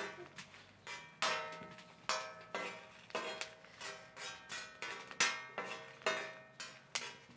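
Metal spoon clinking and scraping against a steel comal while turning roasting dried chiles, a string of ringing metallic taps about one or two a second.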